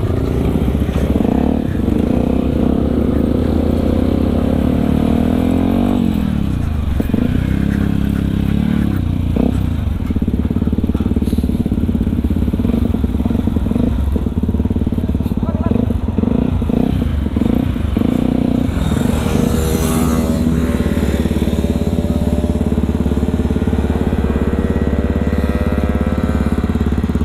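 Yamaha WR155R's single-cylinder four-stroke engine running as the motorcycle pulls away and rides at low speed, its pitch rising and falling with the throttle several times.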